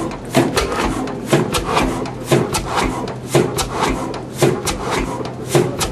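Blackstone 32 bhp spring-injection diesel engine running slowly, with a regular clatter of sharp clicks and knocks, a heavier knock about once a second.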